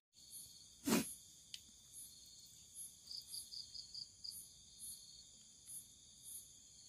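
Insects chirping: a steady high trill with short high chirps repeating over it, and a single knock about a second in.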